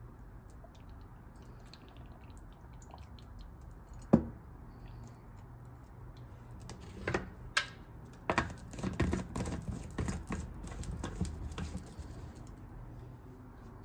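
Kitchen handling noises on plastic: a single sharp knock about four seconds in, as the plastic maple-syrup bottle is set down. Then a run of irregular clicks and scrapes from about seven to twelve seconds as the blender's blade base is screwed onto the plastic blender cup.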